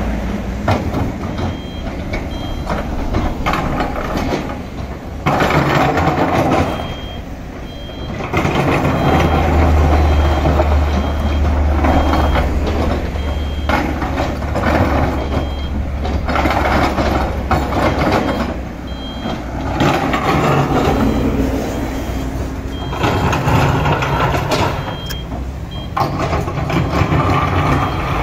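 Hydraulic excavator working a bed of large crushed stone: its diesel engine runs under load while the bucket drags and spreads the rocks, which clatter and scrape. A high reversing-alarm beep sounds on and off throughout.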